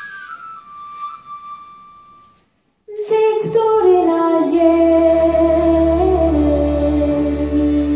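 A thin, high, whistle-like solo melody line that stops about two and a half seconds in, followed by a brief gap of silence; then a woman's singing comes in loudly over sustained folk-ensemble and orchestral accompaniment with a steady low bass.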